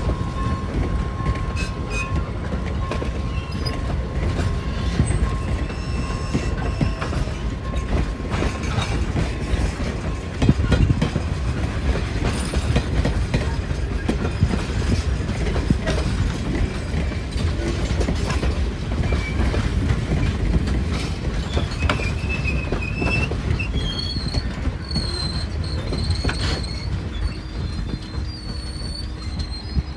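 Steam train rolling slowly past: a steady rumble of wheels on the track, with short high squeals of wheels on the rails, several of them near the end.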